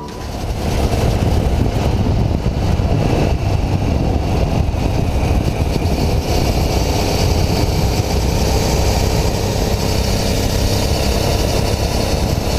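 Aprilia Shiver 750 motorcycle riding along a road at steady speed: the V-twin engine's drone buried in heavy wind and road noise on a camera mounted low by the front wheel.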